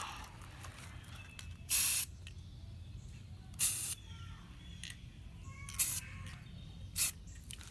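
Aerosol spray-paint can sprayed in four short bursts, the first two longer than the last two, as paint is laid onto water for hydro dipping.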